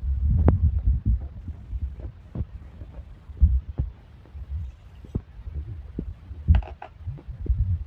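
Low thumps and knocks of a plate and steel pot being handled while sugar is tipped into mango pulp. A few sharper clinks come near the end.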